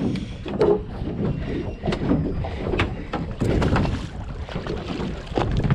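Wind buffeting the microphone and water around a small fishing boat, with a string of sharp knocks and clicks from fishing gear being handled.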